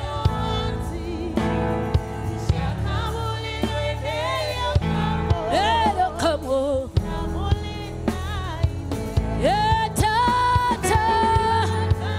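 Live gospel music: a woman singing a melody over a band with bass and drums, holding long high notes in the second half.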